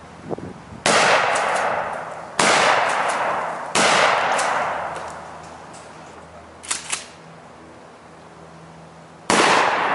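Mossberg Maverick 88 12-gauge pump shotgun fired four times: three aimed shots of 00 buckshot about a second and a half apart, each booming and then fading away, then after a pause with two quick sharp clicks, a fourth shot of birdshot near the end.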